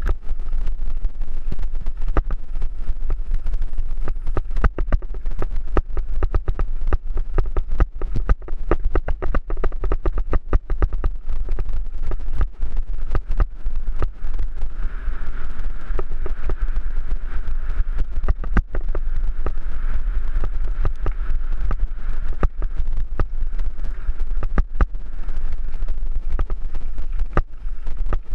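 Mountain bike descending a loose gravel and dirt trail, heard through a helmet-mounted GoPro Hero3 Black: constant wind rumble on the microphone over dense, irregular clattering and knocks from the tyres and bike rattling over stones.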